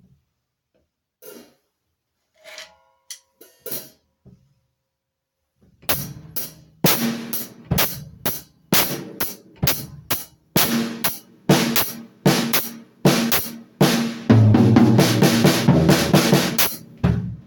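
Drum kit being played: a few light scattered taps, then from about six seconds in a steady beat with cymbals, growing louder and busier near the end.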